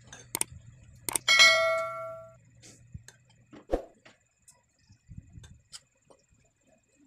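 A metal utensil clinks sharply against a dish about a second and a half in, giving a clear ringing tone that fades over about a second. A few softer clicks and taps of cutlery on the plate follow as the meat is worked apart.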